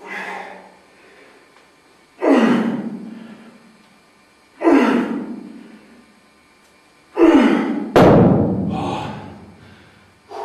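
A man's heavy, strained breathing: loud gasping exhalations about every two and a half seconds, in time with the reps of one-arm dumbbell rows. A thud comes about eight seconds in, followed by a longer drawn-out breath.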